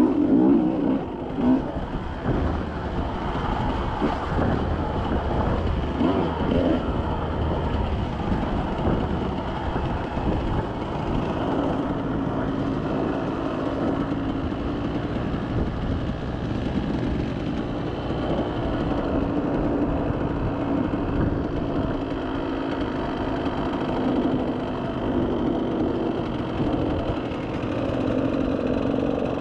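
Off-road vehicle engine running steadily while it drives a trail, its note rising and falling a little with the throttle.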